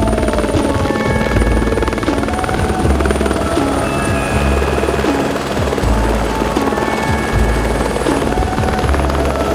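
Light helicopter lifting off, its main rotor chopping fast and steady, mixed with background music.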